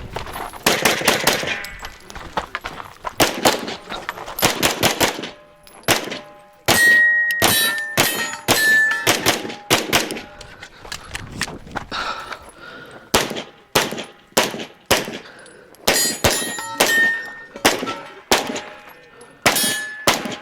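Rapid 9mm pistol shots from a Glock 17 Gen5 MOS fired in strings of quick shots with short pauses between, steel targets ringing after hits.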